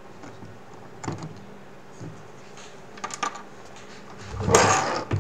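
Small plastic clicks and handling noises as a 3D-printed hinge is worked off a VR headset's audio strap by hand, with a longer, louder rustle about four and a half seconds in.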